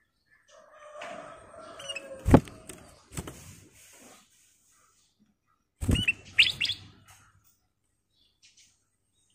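Caged black-crested bulbul gives a short burst of bright chirps about six seconds in. Before it come a few sharp knocks on the wooden cage, the loudest about two seconds in, then again at about three and six seconds, with some rustling around them.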